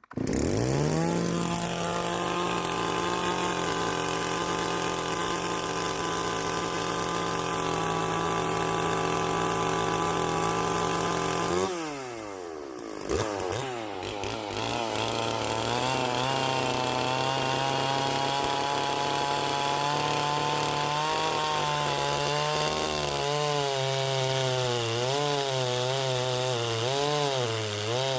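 Chainsaw running at high revs. About 12 seconds in the pitch falls away sharply and the sound drops briefly before the saw picks up again. Through the second half it cuts into an oak log, the pitch dipping and wavering under load.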